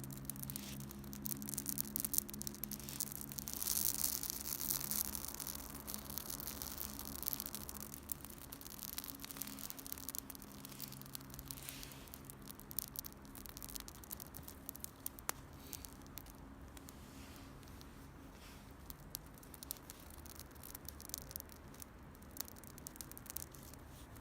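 Wood campfire crackling, with irregular sharp pops and snaps and a brief hissing swell a few seconds in. A faint low hum sits underneath and fades over the first half.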